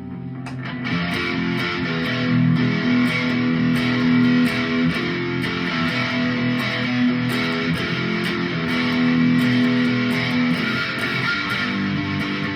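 Chapman electric guitar strumming sustained, ringing chords, with about two to three pick strokes a second.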